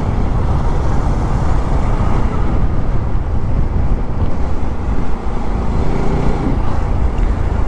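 Bajaj Pulsar NS200 motorcycle being ridden along a street: a steady mix of engine and wind noise on the rider's camera microphone.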